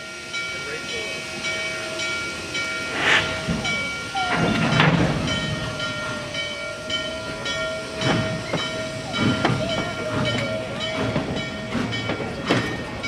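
N&W 611, a Class J 4-8-4 steam locomotive, getting a train of cabooses under way: hissing steam and a few slow, spaced exhaust chuffs. A steady high tone sets in about four seconds in and holds.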